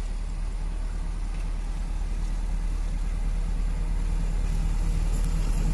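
Approaching diesel-electric locomotive: a low engine rumble that grows steadily louder.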